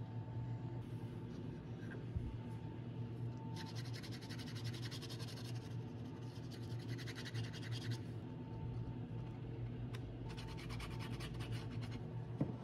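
Rapid, scratchy back-and-forth strokes of a hand tool along the cut edge of a leather strap, as in sanding or working the edge smooth. The strokes come in two runs, one of about four seconds and a shorter one of about two seconds.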